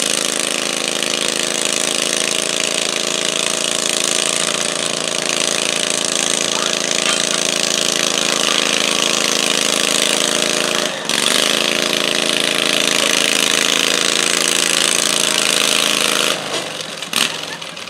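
Garden tractor engine held at full throttle under heavy load while pulling a weight sled, running steadily with a brief stumble about eleven seconds in, then dropping away near the end as the pull stops.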